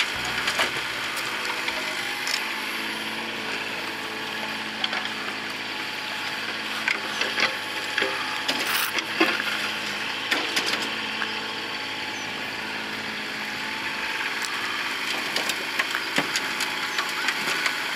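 Mini excavator running steadily as its bucket digs into the soil, with scattered scrapes and knocks throughout.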